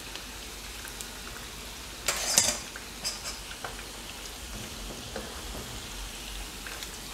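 Hot oil sizzling steadily as shrimp and sweet potato fritters deep-fry in a pan on their second frying, with faint clicks of metal tongs lifting them out. A brief louder burst of sizzle about two seconds in.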